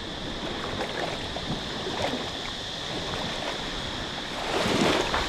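Sea water lapping and sloshing, with small splashes; the wash gets louder near the end.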